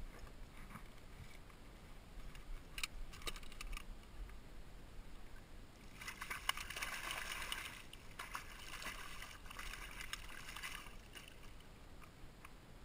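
Water splashing as a landing net is worked under a hooked fluke beside a kayak and lifted aboard, with a few light knocks about three seconds in and a dense spell of splashing and dripping water from about six to eleven seconds as the net comes up out of the water.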